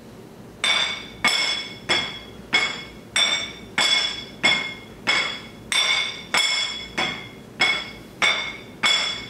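A spatula tapping on plates in a steady beat, a little under two taps a second, each tap with a short ringing clink.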